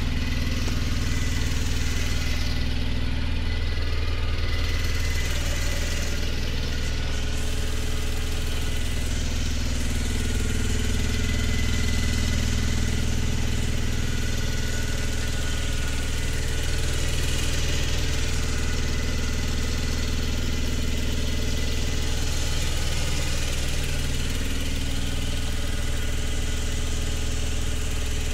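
Ashok Leyland Dost CNG light truck's engine idling steadily, heard through the open engine cover in the cab.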